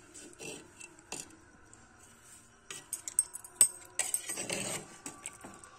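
A spoon stirring chicken curry in a clay handi: a few sharp clinks against the pot and a short scrape, with a quiet stretch between.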